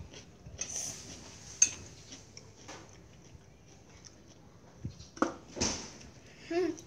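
Chopsticks and spoons clinking and tapping against ceramic plates and bowls as people eat, with one sharp clink about a second and a half in and a few more near the end. A short whine comes just before the end.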